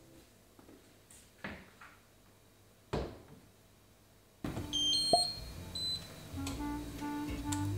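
Quiet kitchen with a few light knocks, the clearest about three seconds in. About four and a half seconds in, soft background music starts, and the IKEA TREVLIG induction hob's touch controls give several short high beeps as they are pressed.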